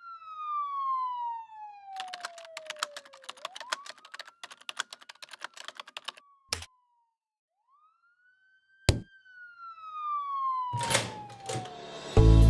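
Programme-intro sound effects: a whistling tone slides slowly down in pitch and back up, twice. Between the two slides comes a few seconds of rapid clicking, followed by two sharp knocks. Music comes in near the end.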